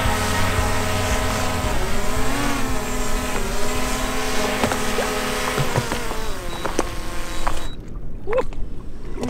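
Small folding quadcopter drone hovering close by, its propellers whining in a stack of tones that rise and fall as it is brought down to a hand catch. The motors cut off suddenly near the end, once it is caught.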